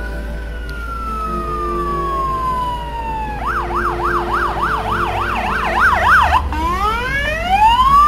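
Fire engine's electronic siren: a slow wail falling in pitch, then switching to a fast yelp of about three cycles a second, then back to a wail that rises again. It grows louder toward the end as the truck passes close.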